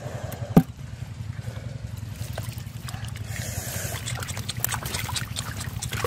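Hands splashing and groping in shallow muddy water among water hyacinth while feeling for fish, with short wet clicks and splashes coming thicker in the second half. One sharp knock about half a second in, over a steady low hum.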